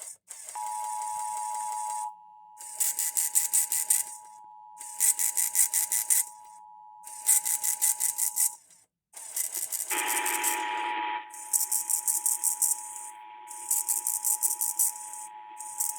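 Emergency Alert System two-tone attention signal, a steady dual tone, sounds for about eight seconds and stops. It starts again about ten seconds in, right after a short data burst. Behind it a rapid, high-pitched ticking interference comes in bursts of about a second and a half, every two seconds.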